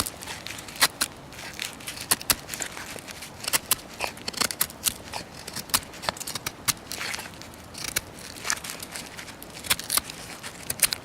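Ganzo G742 folding knife whittling wood: irregular crisp cuts and short scrapes as the blade shaves off curls.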